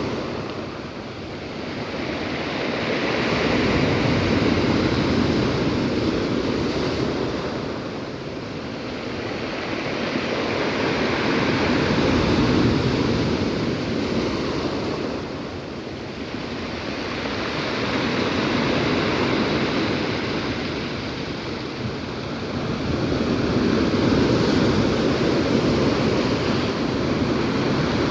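Black Sea surf breaking on the shore in rough, stormy conditions. It is a steady rushing wash that swells and ebbs in slow surges, one roughly every seven seconds.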